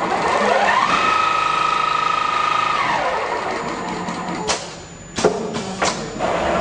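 CNC pattern sewing machine's motor whining up to speed, running steadily for about two seconds, then winding down. Several sharp mechanical clacks follow in the last couple of seconds.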